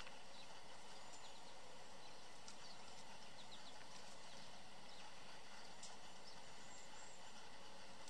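Faint, short, high bird chirps scattered among a few light clicks, over a steady background hiss, from small songbirds at a seed feeder.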